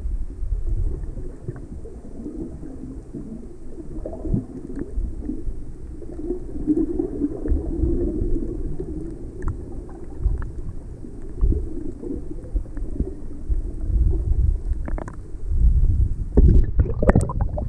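Muffled water noise picked up by a submerged camera: a low, dull rumble with scattered bubbling, then a short burst of splashing near the end as the camera comes up to the surface.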